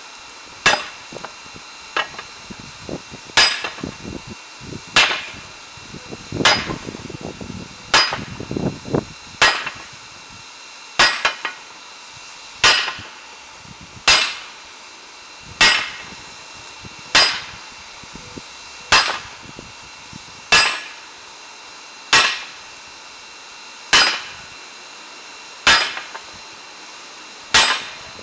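Hammer blows on a red-hot steel sword blade lying on a cylindrical steel block anvil, about one strike every one and a half seconds, each with a short metallic ring.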